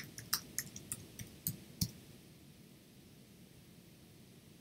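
Keystrokes on a computer keyboard, about eight separate key clicks in the first two seconds as a command is typed. The typing stops about two seconds in.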